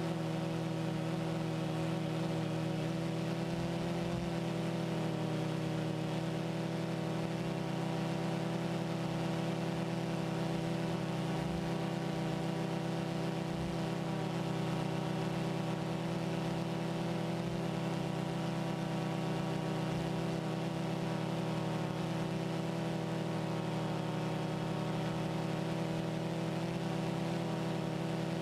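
Multirotor drone's motors and propellers humming steadily in flight, as picked up by the camera on board, a held drone of several even tones without change in pitch.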